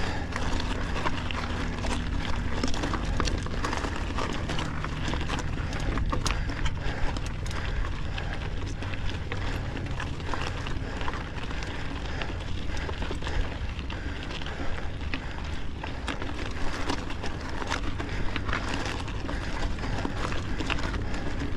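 Mountain bike climbing a rocky desert trail in a low gear: steady trail and wind rumble on the ride-mounted microphone, with scattered clicks and knocks from tyres and bike over rocks.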